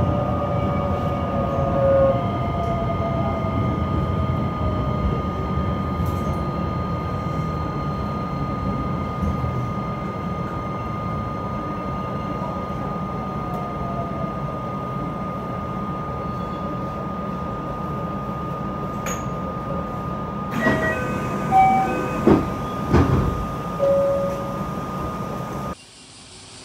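Toyo IGBT-VVVF inverter and running gear of a JR West 227 series 500 electric train slowing into a station: the inverter whine falls in pitch over the first couple of seconds over a steady high tone and rumble. Near the end come a run of clicks, knocks and short beeps, then the sound drops suddenly to a much quieter background.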